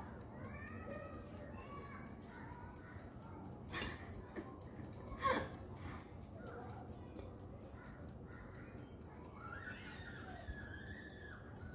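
Quiet kitchen with a faint child's voice murmuring near the start and again near the end, and two short clicks about four and five seconds in, over a faint steady ticking.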